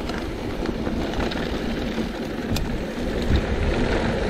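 Mountain bike riding down a dirt trail: steady wind noise on the microphone over a low tyre rumble, with a few light clicks and rattles.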